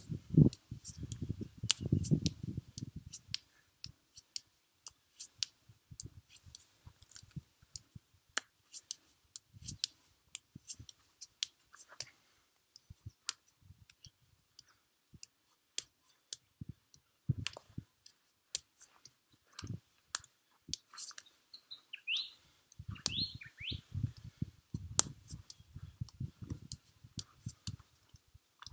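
Forearms striking a tree trunk in quick runs of dull thuds, at the start and again near the end, with a few single blows between. Sharp clicks are scattered throughout, and a bird chirps a few times about three-quarters of the way through.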